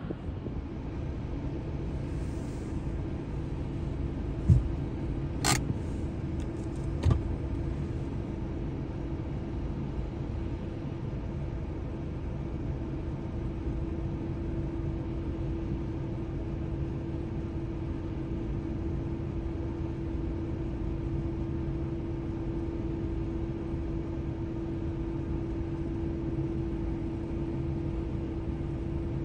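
Jet airliner engines at taxi power, heard as a steady rumble with a steady hum that strengthens about halfway through. A few sharp clicks sound about five to seven seconds in.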